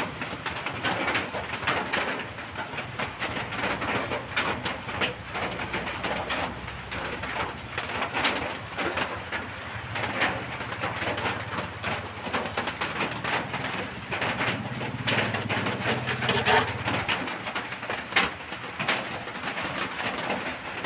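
Birds calling, many short irregular calls.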